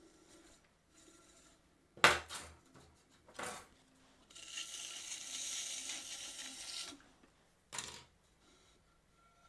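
A metal trimming tool clatters down about two seconds in, with a smaller knock a moment later. Then comes about three seconds of scraping hiss and a last knock near the end as the trimmed clay plate is handled on the potter's wheel head, over a faint steady hum.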